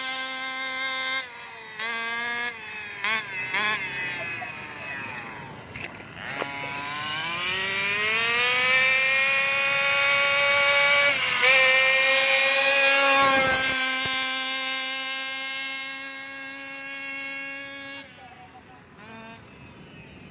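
Small two-stroke engine of a Rovan petrol RC car running: a few quick throttle blips, then a long climb in pitch to a sustained high-revving run. It drops off and fades near the end.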